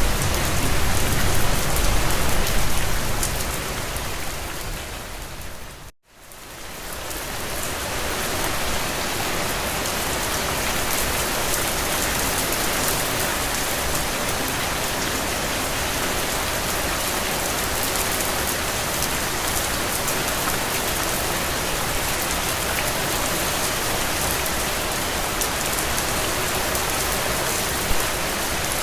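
Steady rain falling, an even full hiss. About six seconds in, it fades out to a moment of silence and swells back in.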